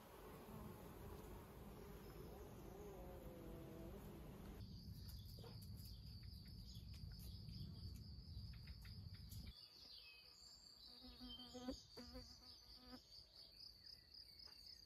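Faint steady high trill of crickets, coming in about a third of the way through. For the first two-thirds it sits over a low rumble, and a few faint clicks come near the end.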